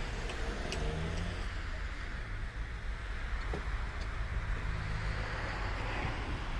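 Steady low rumble of wind buffeting the phone's microphone in an open snowy field, with a few faint clicks.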